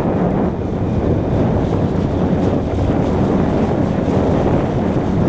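Yamaha four-stroke outboard motor running steadily, driving a small inflatable boat at speed, with wind buffeting the microphone and water rushing past the hull.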